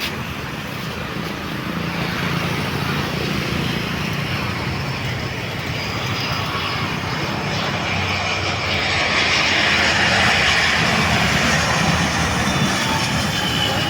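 Jet airliner coming in to land and passing the listener, its engine noise growing louder to a peak about ten seconds in and then easing off, with a faint high whine near the end.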